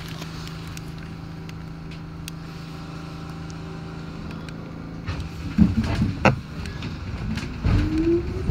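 1984 Kawasaki R62 subway car standing in the station with a steady electrical hum, a few clunks about five and a half to six seconds in, then pulling out with a motor whine rising in pitch near the end.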